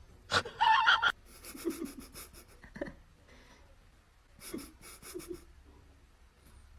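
Short bursts of quick breathing, with a louder sound in the first second.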